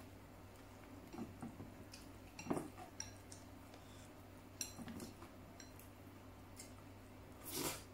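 Chopsticks clinking and scraping against a ceramic bowl of noodle soup, with soft eating sounds, as small mouthfuls are lifted from the bowl. There are scattered light clinks throughout and a longer, louder noisy sound near the end.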